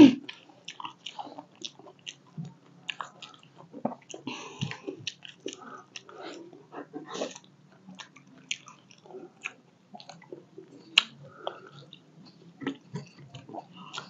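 A person chewing panipuri: crisp, hollow puri shells filled with spiced water, giving a quiet, irregular run of small crunches and clicks.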